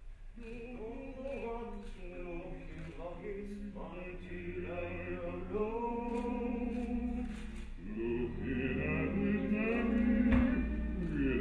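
A man's voice singing a slow, drawn-out tune without clear words, getting louder toward the end.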